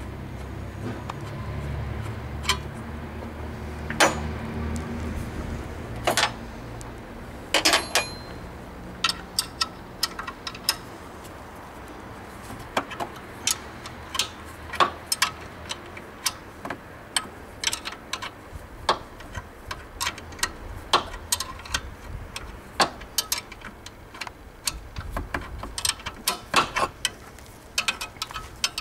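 Irregular metallic clicks and clinks of hand wrenches and bolts working on the engine bay, some in quick clusters. A low rumble fades out in the first several seconds.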